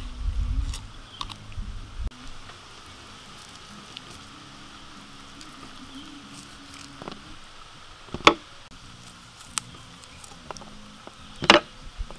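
A knife cutting into rice and roast chicken on a metal plate, with two sharp clicks of the blade against the plate about eight and eleven and a half seconds in. Before that, a low rumble runs for the first two seconds and then gives way to a faint steady background.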